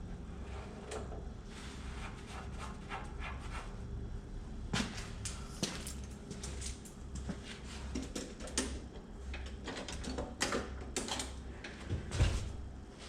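Scattered clicks and knocks of channel-lock pliers and hand tools working the ignition switch loose on a John Deere 175 dash, over a steady low hum, with a heavier knock near the end.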